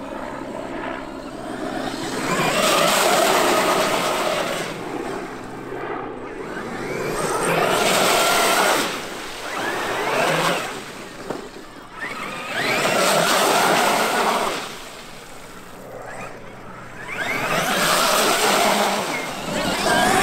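Traxxas X-Maxx brushless electric RC monster truck tearing through mud and puddles, its motor whining up and down in pitch under the hiss of water and mud thrown from its tyres. The sound swells and fades about four times as the truck makes repeated passes.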